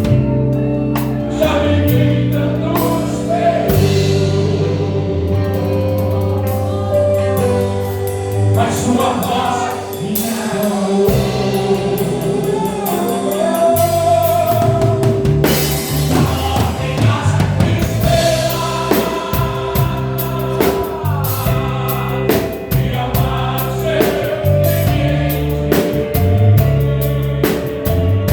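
Live gospel band playing in church: electric bass and drum kit with voices singing over keyboard chords.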